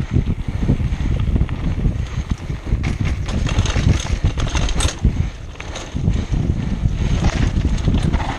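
Wind buffeting the microphone of a mountain bike's on-board camera while descending a dirt trail, over the rumble of the tyres on the dirt. Quick clicks and rattles from the bike over bumps, thickest in the middle, with a brief quieter moment just after.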